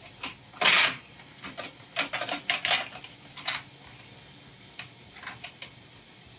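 Stainless steel malt basket and its support ring clanking and rattling against the rim of an Anvil Foundry 10.5 brewing kettle as the ring fails to stay in place under the basket. There is one loud clank under a second in, then a run of lighter knocks over the next few seconds, and a few faint taps near the end.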